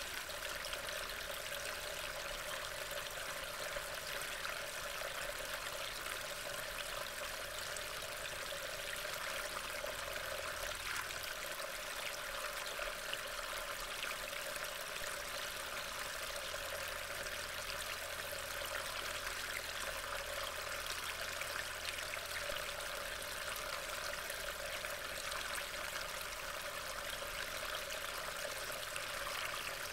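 Steady rain, an even unbroken hiss of falling water picked up by a trail camera's microphone.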